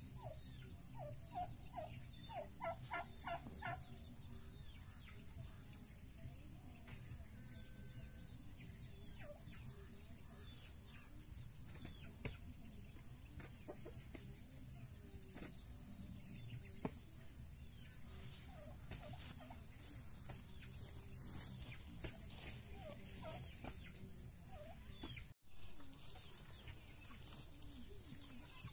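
Farm poultry calling: a quick run of about eight short rising calls a few seconds in, then fainter scattered calls later, over a steady high hiss.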